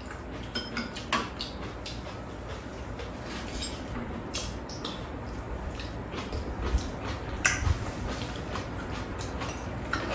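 Two people eating ramen with chopsticks: scattered clicks of chopsticks against the bowls and on the metal tray, mixed with mouth noises of slurping and chewing noodles.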